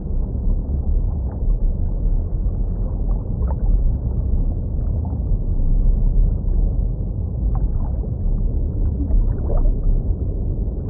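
Underwater ambience: a steady low, muffled rumble with a few faint, brief squeaky glides scattered through it.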